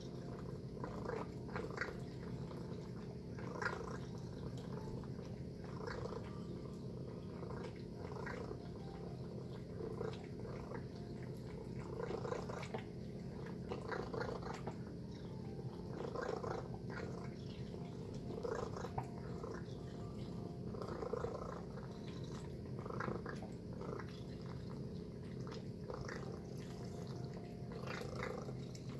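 A cat eating wet shredded food from a metal bowl: short wet chewing and smacking sounds in bouts every second or so, over a steady low hum.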